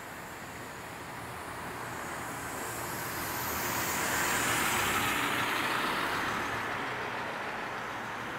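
A bus driving past close by, its engine and tyre noise swelling to a peak about halfway through and then fading as it goes.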